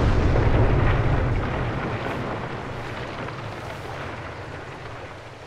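A deep, low cinematic rumble that swells at the start and then slowly fades away over several seconds, a dramatic sound-design boom laid under the film's silent reaction shots.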